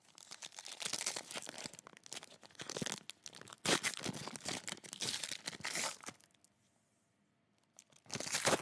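Plastic-foil wrapper of a trading card pack being torn open and crinkled, crackling for about six seconds, then a pause and another short burst near the end.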